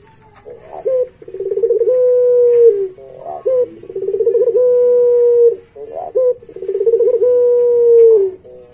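Puter pelung, a domesticated Barbary dove bred for its long coo, cooing three times. Each coo opens with a short note, rolls into a trilled start and then holds a long, steady, low note.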